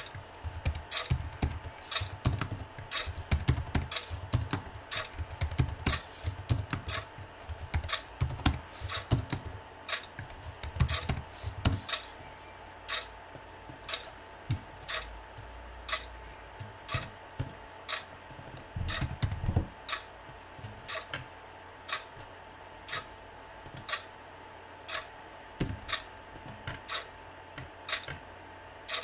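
Typing on a computer keyboard: quick, dense keystrokes for about the first twelve seconds, then thinning to single clicks roughly once a second, over a faint steady hum.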